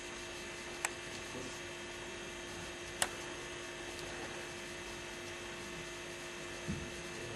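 Steady electrical mains hum with several constant tones, broken by two sharp clicks, one about a second in and a louder one about three seconds in, and a faint low thump near the end.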